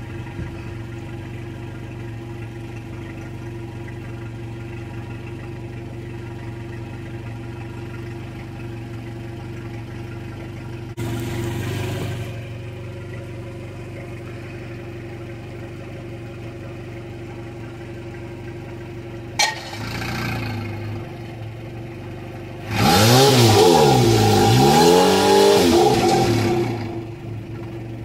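2007 Mercury 115 hp four-stroke outboard engine idling steadily while it is warmed up for an oil change. It has a short louder moment about eleven seconds in and a sharp click about nineteen seconds in, then is revved up and back down near the end.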